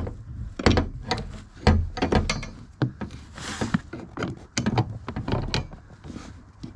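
Irregular clicks and knocks of a BMW E60 wiper arm being handled and seated back onto its linkage spindle, with a short rustle about halfway through.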